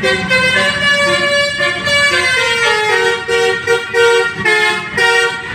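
Telolet horn on an Indonesian tour bus, a multi-tone musical horn, playing a melody of stepped notes, breaking into a run of short quick notes in the second half. The bus's engine rumbles low underneath.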